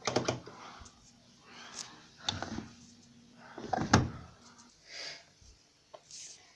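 Indesit washing machine being handled: a few separate clunks and clicks of its door or drawer shutting, the loudest about four seconds in.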